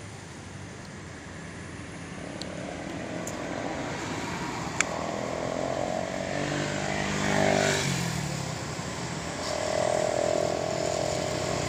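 Motor vehicles passing on a nearby road: one engine grows louder to a peak about two-thirds of the way in, then drops in pitch as it goes by, and another comes up near the end. A single sharp click a little before the first peak.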